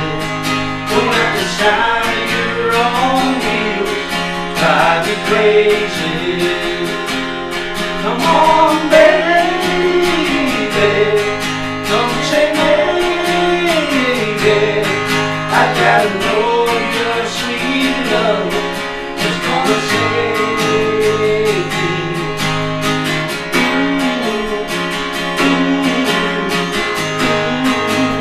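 Two acoustic guitars strummed in a steady, even rhythm, with male voices singing over them.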